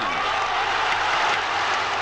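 A very large crowd applauding and cheering: a steady, loud wash of clapping and voices.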